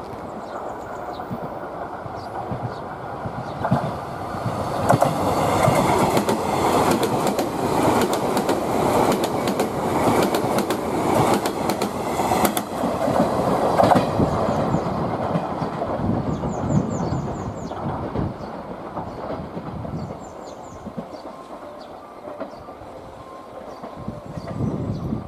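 JR West 381 series electric express train passing at speed. The rumble of its wheels on the rails builds a few seconds in, with rapid clickety-clack over the rail joints while the cars go by, then fades as it draws away.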